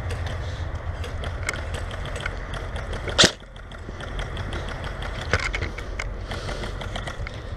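Airsoft gunfire in a skirmish: scattered pops and clicks of guns over a low steady rumble, with one much louder sharp crack about three seconds in and a smaller one about two seconds later.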